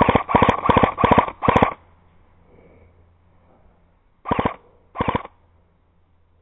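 Airsoft electric gun firing short full-auto bursts, each a quick rattle of rapid shots. There are five bursts back to back in the first two seconds, then two more about four and five seconds in.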